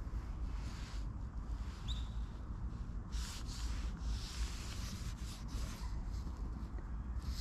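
Chinese ink brush swishing across paper in a few soft strokes, over a steady low rumble.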